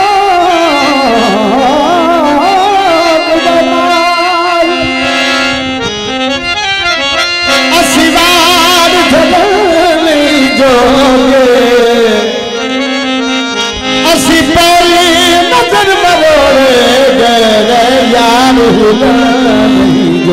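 A man singing into a microphone over a loud PA, with instrumental accompaniment that holds a steady drone note under the melody. The voice drops out briefly a few seconds in and again near the middle while the instruments carry on.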